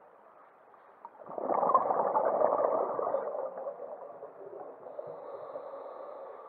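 Scuba diver's exhaled bubbles from the regulator, heard underwater: a gurgling rush of bubbles that starts about a second in, is strongest for a couple of seconds, then fades away muffled.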